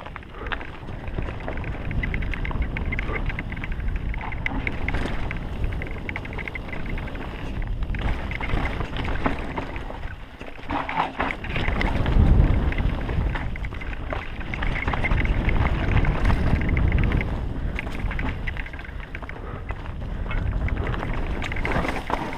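Wind rushing over a helmet-mounted camera's microphone, with mountain bike tyres rumbling and the bike rattling over a bumpy dirt trail at speed. The rumble swells about halfway through.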